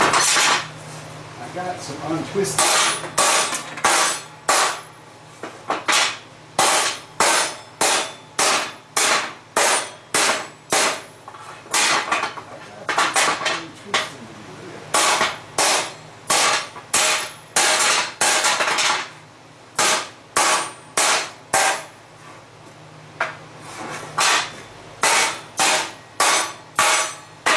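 Hand hammer striking a forged steel scroll of 3/4-inch square bar on a steel workbench: a steady run of metal-on-metal blows, about two a second, with a few short pauses between runs.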